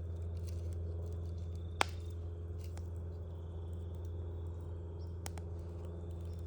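Burning wood in a campfire crackling over a steady low rumble, with a few sharp pops. The loudest pop comes about two seconds in, and a quick double pop a little after five seconds.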